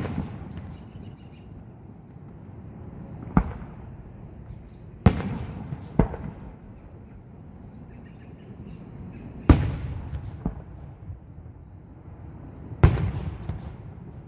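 Aerial fireworks shells bursting: about six sharp booms spaced a few seconds apart, each trailing off in a low rumble.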